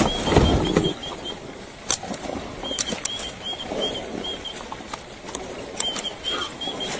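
Runs of short high chirps, about four a second, from a small bird calling again and again, over steady outdoor noise, with a louder low scuffle in the first second and scattered clicks.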